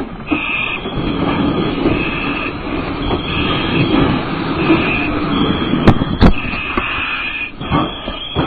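Inside a smoke-filled burning house: steady rumbling noise under a high-pitched electronic alarm tone that sounds on and off, with two sharp knocks about six seconds in.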